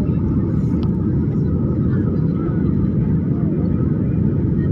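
Jet airliner cabin noise heard from a window seat: the steady low rumble of the engines and the air rushing past the fuselage, even in level throughout.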